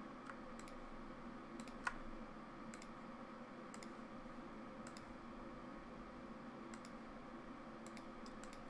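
Scattered single clicks of a computer mouse and keyboard, about a dozen spread irregularly, over a steady faint hum.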